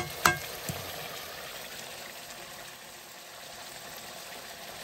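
Buffalo meat frying in a wok, a steady sizzle. The metal ladle strikes the wok with a ringing clank just after the start.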